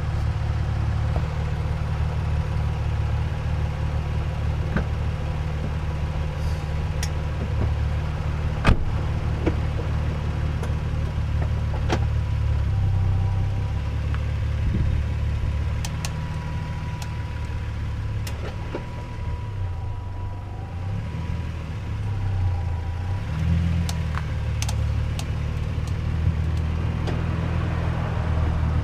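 2003 Nissan 350Z running with a steady low rumble, over which irregular sharp ticks sound every second or two, one a little under nine seconds in louder than the rest. The ticking seems to come from the front brake or suspension area and is still there after a new wheel bearing; the owner suspects bushings or end links.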